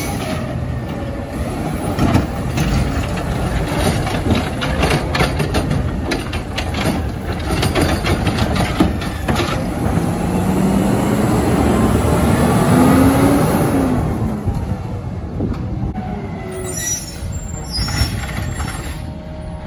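McNeilus-bodied garbage truck running at the curb with a series of clanks and clatters, then its engine revs up in a rising tone as it pulls forward, falling away a few seconds later.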